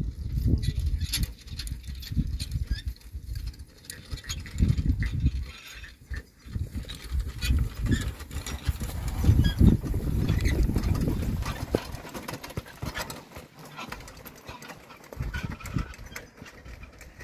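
Pair of Friesian horses pulling a four-wheeled carriage: hoofbeats on grass and sand with the carriage and harness rattling, under a low, uneven rumble that swells and fades.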